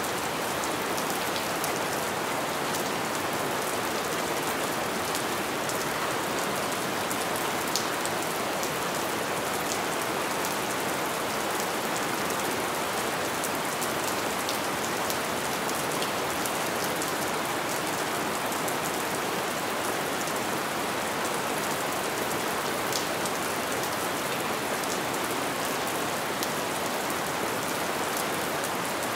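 Light rain falling steadily: an even hiss of rain on surfaces, with a few individual drops ticking out here and there.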